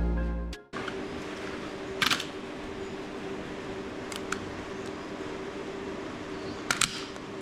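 Electronic music cuts off about half a second in, leaving a steady low hum of room tone. Over the hum come a few short clicks and brief bursts of handling noise, a double one near the end.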